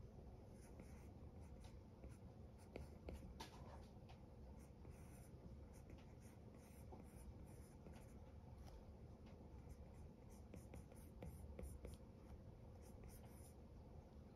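Apple Pencil tip scratching and tapping on an iPad's glass screen in many short, quick strokes, faint.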